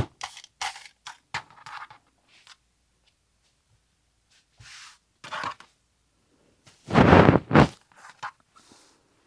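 Fabric and an acrylic quilting ruler being handled and shifted on the cutting table: a run of light clicks and taps, then a loud rough rustling scrape about seven seconds in.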